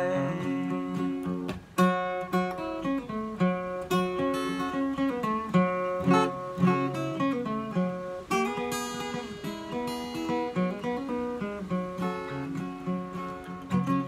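Acoustic guitar with a capo playing an instrumental break between sung verses: a steady run of picked notes and chords.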